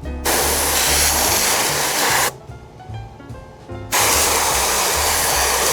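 Spray adhesive hissing onto seat cushion foam in two long sprays: the first lasts about two seconds, and the second starts about four seconds in. Background music with a steady bass line plays underneath.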